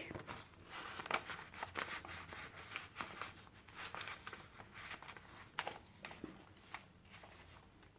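Paper rustling with scattered light taps and crinkles as the pages, tags and pockets of a handmade junk journal are handled and turned.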